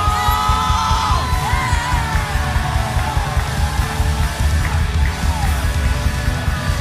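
A live worship band playing loud, driving music with pounding drums and bass. A voice yells a long held note near the start that slides down in pitch and fades out within about two seconds.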